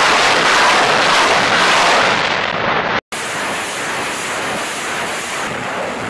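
BM-21 Grad truck-mounted multiple rocket launchers firing salvos: a loud, continuous rushing roar of rockets leaving the launch tubes. It cuts off sharply about three seconds in, and a second, somewhat quieter salvo follows.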